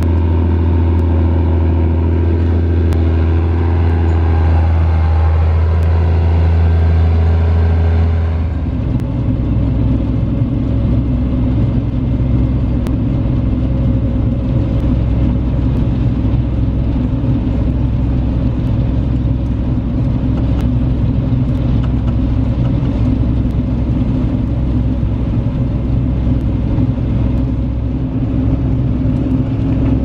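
Claas Dominator 208 combine harvester running steadily at working speed while harvesting sunflowers, with a strong low engine hum and higher machine whines. About eight seconds in, the sound changes abruptly to a lower, rougher steady drone, heard from inside the cab.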